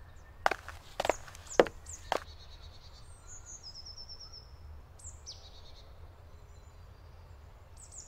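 Four footsteps, about half a second apart, followed by songbirds chirping and trilling faintly over a low steady forest background.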